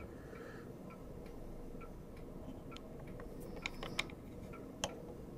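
Faint, irregular small clicks and ticks from handling an analog multimeter test setup, with a few sharper clicks about three and a half to five seconds in, over a faint steady hum.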